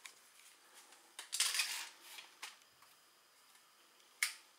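A small recurve crossbow being handled and loaded: a scraping rustle about a second in, a few small knocks, then one sharp click near the end.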